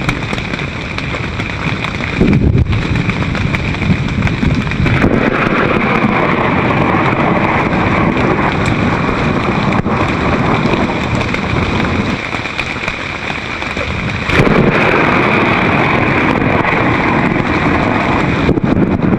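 Thunderstorm wind and heavy rain beating on the tent fabric in a loud, continuous rush. It surges suddenly about two seconds in, eases for a while after twelve seconds, and surges again, louder, about fourteen seconds in.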